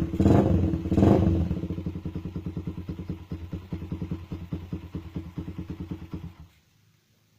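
Suzuki Raider R150 with an aftermarket open-pipe exhaust, blipped twice right at the start, then dropping back to idle with a steady pulsing beat that slowly gets quieter. The sound cuts off abruptly about six and a half seconds in.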